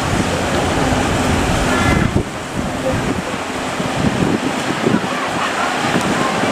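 Large ocean waves breaking as surf, with wind buffeting the microphone.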